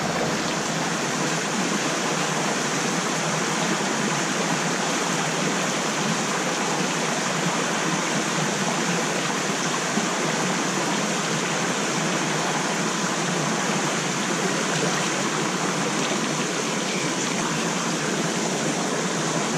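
Small stream's water flowing steadily, an even rush that neither rises nor breaks.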